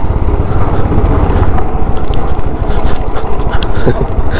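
Royal Enfield motorcycle engine running at low revs with a steady, rapid beat during slow off-road riding.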